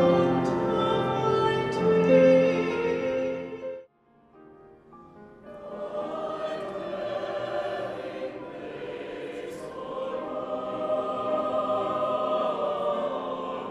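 A choir singing sustained, layered notes, cut off suddenly about four seconds in; after a brief near-silent gap, softer sustained choral music fades in and continues.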